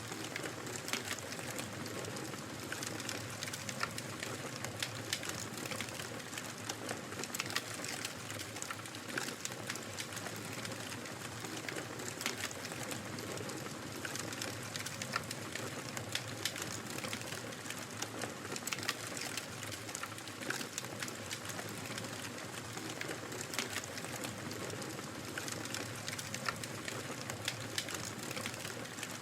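Fire crackling: a steady low rush with many small, irregular snaps and pops throughout.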